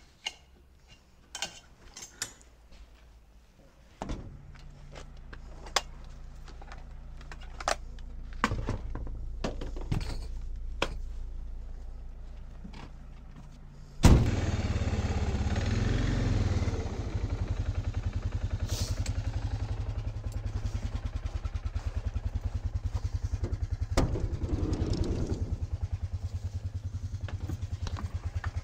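A few sharp clicks and taps, then a low steady hum; about halfway an engine cuts in abruptly and runs steadily at idle with a fast, even pulse.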